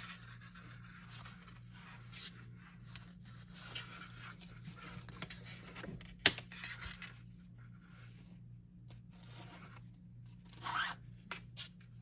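A strap being pulled and threaded through the holes of a holster: intermittent rubbing and scraping, with one sharp click about six seconds in and a louder swish near the end. A steady low hum runs underneath.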